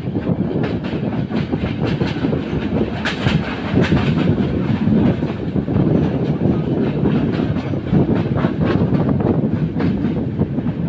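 Kopotakkho Express passenger coach running along the track, heard from an open coach window: a steady rumble with irregular clickety-clack as the wheels cross rail joints, busiest a few seconds in.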